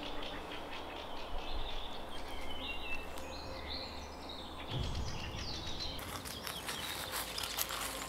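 Small birds chirping in the woods over a steady outdoor background, with rustling and crackling coming in from about six seconds in.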